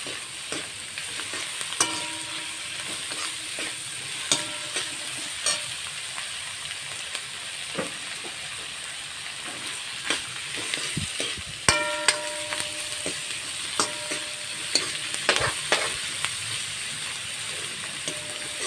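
Onions, green chillies and freshly added garlic and ginger sizzling in hot oil in a wok, with a metal spoon stirring and scraping through them. A few of the spoon's knocks against the wok ring out briefly, about two, four and twelve seconds in.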